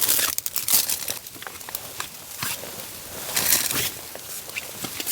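Rustling and crinkling of nylon stuff sacks and gear being pulled from a backpack, in irregular bursts, loudest at the start and again about three and a half seconds in.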